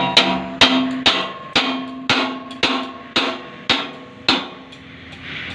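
Hammer striking steel in a steady rhythm of about two blows a second, each blow leaving a metallic ring. About ten blows, stopping a little past four seconds in.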